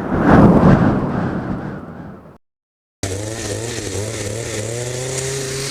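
A loud rushing whoosh swells and fades over about two seconds and stops at a sudden cut. After a brief gap, the small two-stroke engine of an Echo HC-150 hedge trimmer runs steadily, its pitch wavering slightly.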